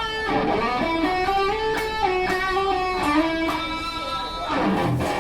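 PRS Custom 24 electric guitar with a Floyd Rose tremolo playing a single-note lead line with bends and slides. About four and a half seconds in it lands on a strummed chord that rings on.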